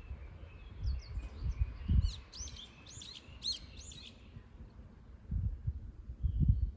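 A songbird singing a quick run of sweeping, chirping notes for a few seconds, starting about a second in. Under it, irregular low rumbles swell twice, about two seconds in and again near the end.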